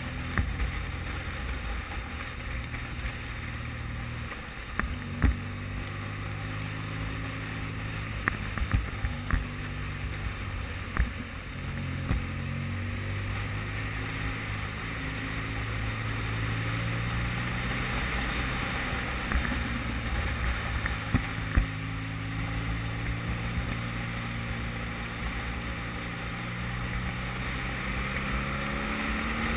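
Motorcycle engine running under way on a wet road, mixed with wind rush and tyre hiss; the engine note drops and rises several times with throttle and gear changes. A few sharp taps stand out, loudest about a fifth of the way in and again about two thirds through.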